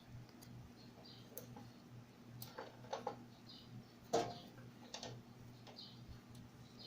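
Scattered light clicks and knocks of hands handling speaker cables at an amplifier's rear terminals, over a faint steady low hum.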